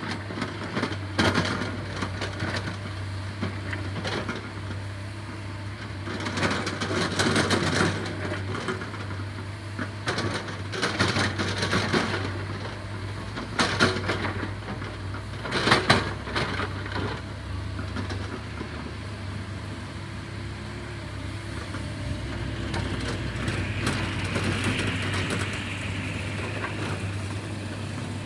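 Earthmoving machine (backhoe or excavator) engine running steadily with a low hum, with repeated louder bursts of crunching noise as it works, several times over.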